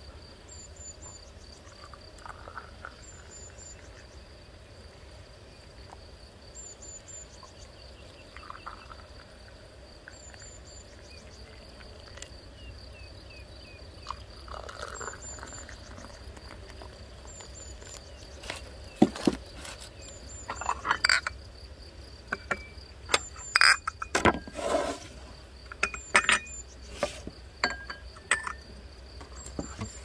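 Herbal tea poured from a glass teapot into glass tumblers in a few short pours. In the second half, glasses and saucers clink and knock sharply on the wooden table and tray. A steady insect trill and a small bird's short, regularly repeated chirps continue underneath.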